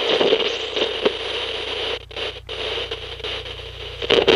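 Crackling, hissing static noise effect with scratchy clicks. It thins out about halfway through, then swells into a louder burst of glitchy static near the end.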